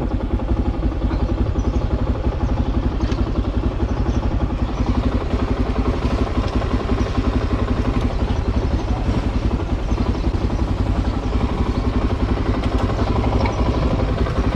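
Motorcycle engine running steadily at low revs, its firing pulses even and unbroken.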